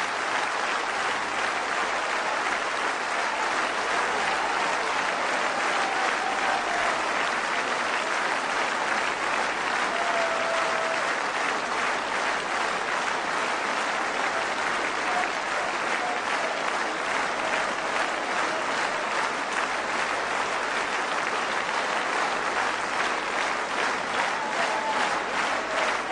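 Large audience applauding steadily, with a few short calls rising above the clapping.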